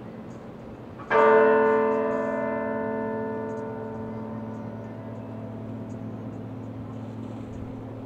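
The bell in Halliburton Tower strikes once, about a second in, a sudden clang of many ringing tones that fades away over several seconds while its low hum keeps sounding. It is one slow stroke in a memorial toll.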